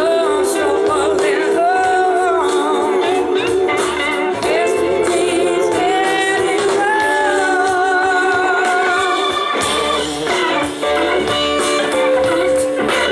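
Live blues-rock band playing: a woman singing over electric guitars, bass and two drum kits, loud and continuous.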